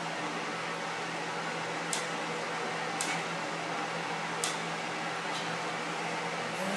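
A steady fan-like whir with a low hum, broken by three short, sharp clicks about two, three and four and a half seconds in.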